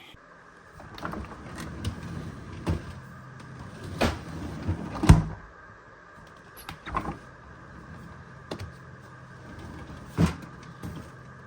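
A GE side-by-side refrigerator's freezer door being worked open and shut, giving a series of knocks and thumps, the loudest about five seconds in, over a steady hum. The door is being checked after the unit's leveling feet were adjusted so that it tilts back and the door swings shut and seals.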